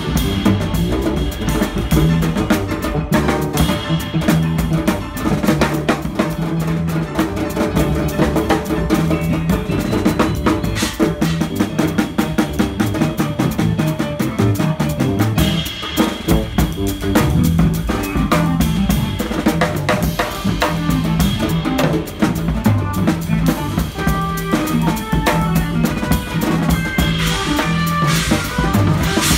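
A small band playing live, with a drum kit played with sticks loudest and closest, over keyboard, bass notes and hand-played congas.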